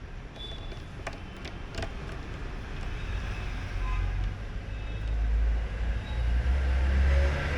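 A low rumble building steadily louder through several seconds, with a few light clicks in the first two seconds.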